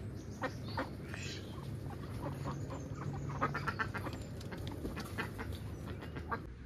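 Short, scattered animal calls and clicks over a low steady hum.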